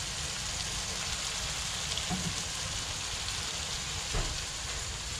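Curry seasoning paste (onion, tomato, garlic paste, green seasoning and garam masala) sizzling steadily in hot oil in a pot, with a couple of faint knocks about two and four seconds in.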